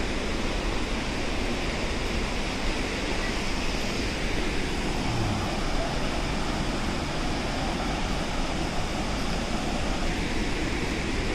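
Steady rushing of Athirappilly Falls, a large waterfall, an even unbroken water noise.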